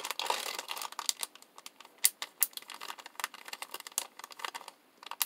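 Plastic wax-melt packaging being handled and sorted in a box: irregular crinkling and rattling with quick sharp clicks, the sharpest about two seconds in.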